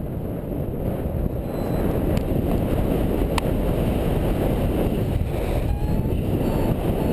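Wind buffeting a helmet camera's microphone as a paraglider takes off and picks up airspeed, growing louder about a second in. Faint short beeps, as from a flight variometer, start near the end.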